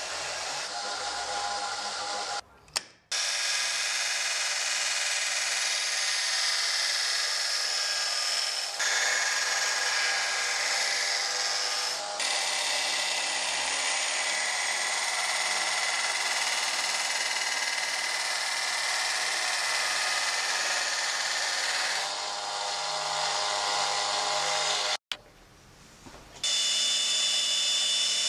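Small bench belt sander grinding a steel cleaver blank, a steady rasping hiss of abrasive belt on metal. It drops out briefly twice, near the start and near the end.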